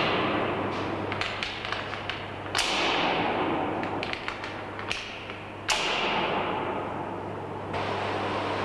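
Busbar disconnector knife blades being closed one pole at a time with an insulated operating rod: two sharp metallic clacks about three seconds apart, each ringing out briefly. Under them runs the steady low hum of a running hydro generator set.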